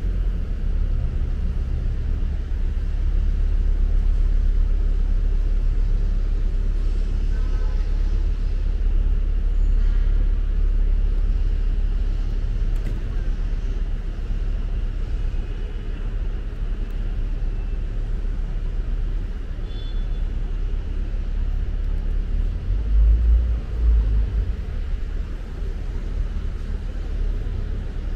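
Busy city-street ambience: a steady low rumble of road traffic with faint scattered voices. A louder low rumble swells briefly a few seconds before the end.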